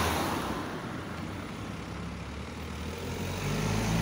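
Road traffic passing: a vehicle goes by, loudest at the start and fading away, then another vehicle's low engine hum builds near the end.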